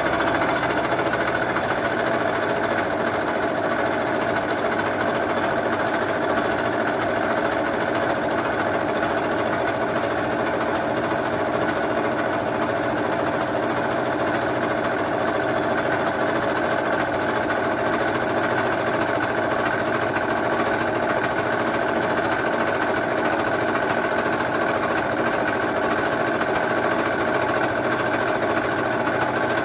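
Vertical milling machine face-milling mild steel with an 80 mm face mill at about 800 rpm under power table feed: a steady cutting and motor drone with many steady tones, even in level throughout.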